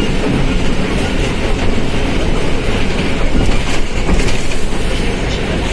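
Volkswagen Volksbus 17.230 OD bus running, heard from on board: a steady, loud engine and drivetrain rumble, with a few sharp rattles a little past halfway.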